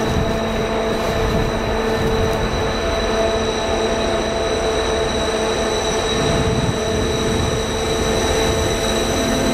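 DB Class 232 'Ludmilla' diesel locomotive approaching under load with a long freight train, its big 16-cylinder diesel engine running with a loud, steady drone. Steady high whistling tones ride over the engine note.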